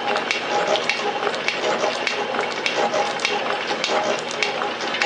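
Rhodes metal shaper running, its ram stroking back and forth as the cutting tool planes the side of a cast steam chest, a steady machine noise with repeated clicks and brief ringing tones.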